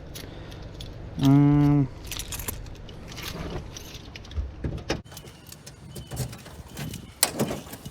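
Keys jangling and rattling in a hand, with scattered clicks and knocks. About a second in there is one short, loud, steady tone.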